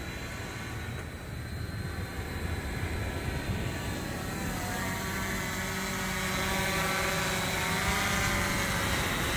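Large multirotor fishing drone flying in close, a steady propeller buzz that grows louder partway through as it approaches.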